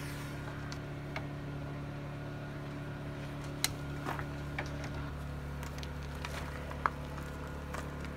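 A steady low machine hum that shifts slightly about five seconds in, with a few light clicks and taps.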